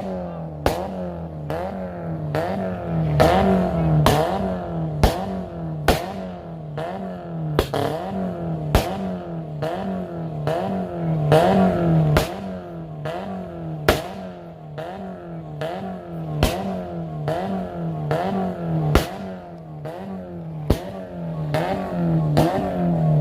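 VW Golf Mk2 GTI eight-valve four-cylinder engine revved in quick repeated throttle blips through a loud aftermarket exhaust. There is a sharp crack at the start of each blip, about every three-quarters of a second.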